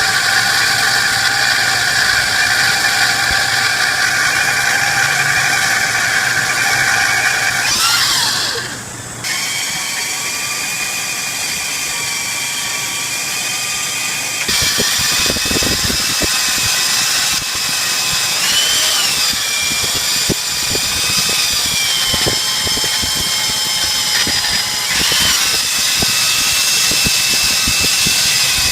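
A machine tool running with several steady high whining tones. It falters about eight seconds in and starts again fuller about fifteen seconds in, after which a scatter of short clicks and knocks runs through it.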